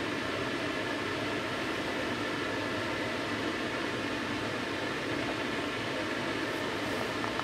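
A standing VR Sm3 Pendolino electric train's ventilation and cooling fans running with a steady whirring hiss and faint hum tones.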